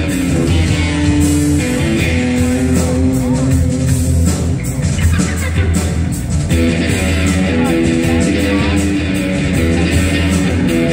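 Live rock band playing loud amplified music: held instrument lines over drums with a steady cymbal beat.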